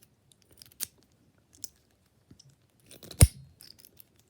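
Key working in the keyway of a Tri-Circle 265 50 mm brass padlock, with faint small clicks and scrapes, then a single loud sharp click about three seconds in as the lock unlocks and the shackle springs open.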